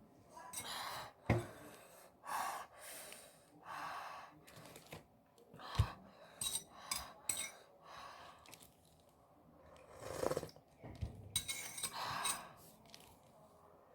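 Sips of spicy ramen broth with sharp breaths in between, as from eating very hot food, and a few clinks of tableware against the bowl.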